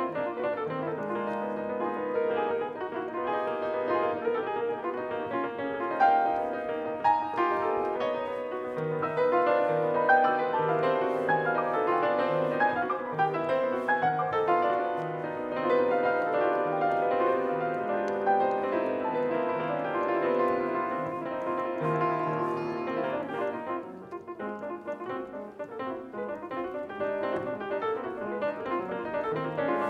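Grand piano played solo: a busy, unbroken stream of many overlapping notes, mostly in the middle register. The playing softens and thins briefly about three quarters of the way through, then fills out again.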